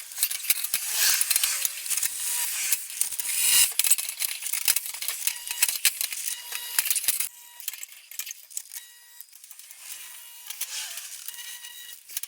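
Metal clinking and rattling, like loose pieces of expanded sheet metal being handled and shifted, busy and dense at first and thinning out to faint occasional clinks after about seven seconds.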